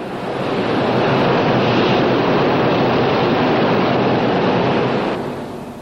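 Ship's bow cutting through the sea at speed: a loud rush of water and spray that swells up about a second in and dies away near the end, over the steady low drone of the ship's engines.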